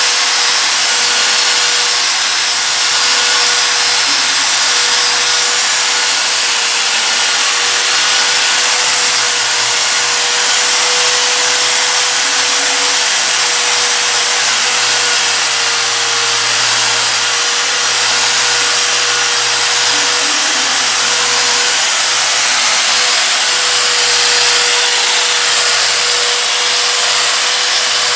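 Electric angle grinder running steadily under load, its 3000-grit dry resin diamond polishing pad pressed onto a marble floor with no water. A constant motor whine sits over the hiss of the pad on the stone, at the final, finest grit of the polishing sequence.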